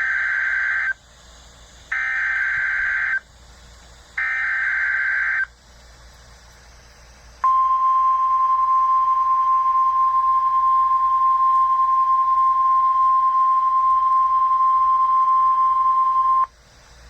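NOAA Weather Radio emergency alert signal during the required weekly test. It begins with three bursts, about a second each, of the SAME digital header's warbling data tones. After a short gap comes the single steady 1050 Hz warning alarm tone, held for about nine seconds and then cut off sharply. This is the signal that automatically switches on weather alert receivers.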